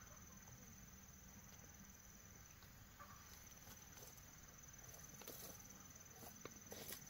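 Quiet: a faint, steady, high-pitched insect drone, with soft crackling footsteps of rubber boots on dry grass mulch in the second half.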